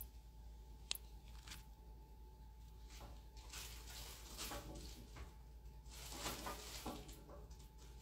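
Faint rustling of a black disposable glove and light handling of a nail tip, with two small clicks in the first second and the rustling getting busier about halfway through.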